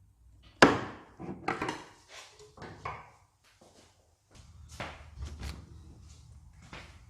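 Parts and tools being handled: one sharp knock about half a second in, then a string of lighter knocks and clicks, with a low rumble setting in about halfway through.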